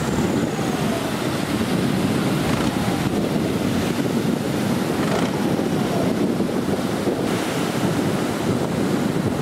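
Wind buffeting the microphone over breaking surf, with the dive boat's twin Yamaha 70 outboard motors running underneath.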